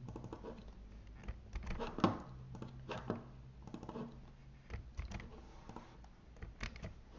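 Typing on a computer keyboard: irregular key clicks, a few of them louder.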